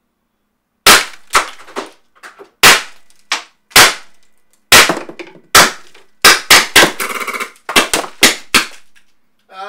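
Tiberius T8.1 CO2 paintball gun firing a magazine of Bulls Breaker balls into a plaster head dummy: about a dozen sharp cracks of shots and hits. They come about a second apart at first, then faster near the end, with a short rattle in among them. The owner blames an old, expired CO2 cartridge for this magazine falling short.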